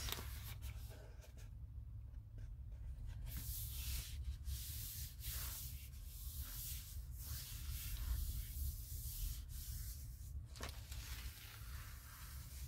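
Faint rustling and rubbing of a Moleskine journal's stiff kraft-paper pages as they are turned and smoothed flat by hand, in scattered short rustles over a low steady hum.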